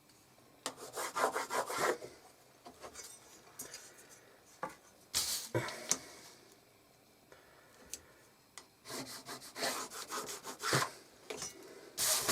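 Pencil scratching across paper in several separate strokes, drawing marking lines on a squared graph-paper template.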